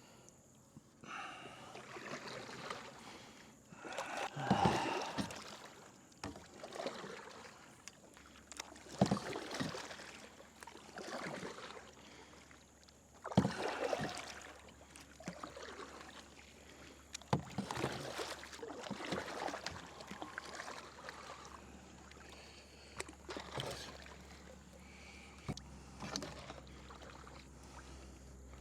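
Kayak paddle strokes splashing in shallow water, an uneven dip and swish every few seconds, as the kayak is paddled along.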